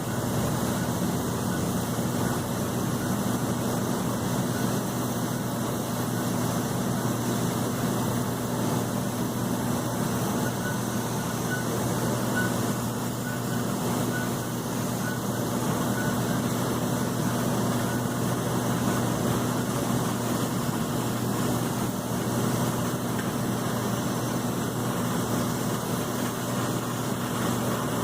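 Airbus A330-200 airliner running at idle: a steady, unchanging hum with a broad hiss over it.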